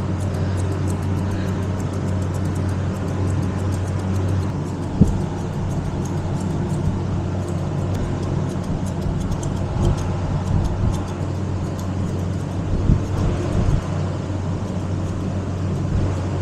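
Electric dog-grooming clippers running with a steady low hum as they cut through the dog's coat, with small clicks and the odd knock.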